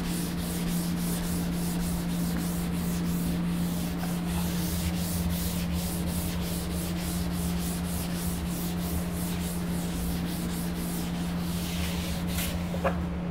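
Writing board being wiped clean with a duster: quick back-and-forth rubbing strokes, about three a second, stopping shortly before the end.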